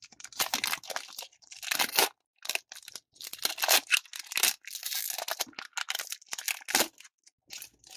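Foil wrapper of a trading-card booster pack being torn open and crinkled by hand, a string of irregular rips and crackles.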